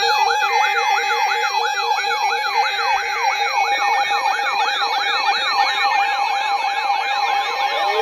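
Electronic siren-style alert sounds layered together: a fast up-and-down yelp of about three or four sweeps a second over a steady tone and a lower two-note warble, with a slow rising wail starting near the end.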